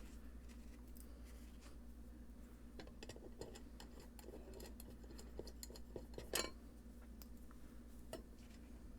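Small clicks and light clinks from handling and fitting the back plate onto a guitar pedal's enclosure, with a sharper click about six seconds in and another near the end, over a steady low hum.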